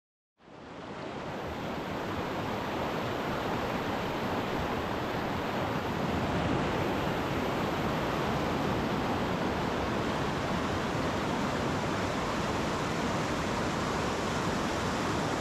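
Steady rushing of a river rapid, swelling in over the first second or two.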